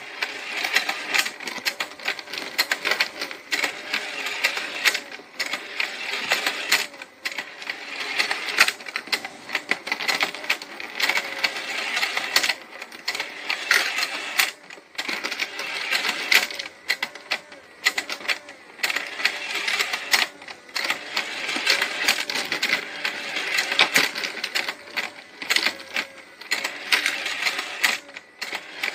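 Toy penguin escalator running: its plastic stair mechanism clatters in a fast, dense rattle of clicks as the toy penguins are carried up the steps, with a few brief pauses.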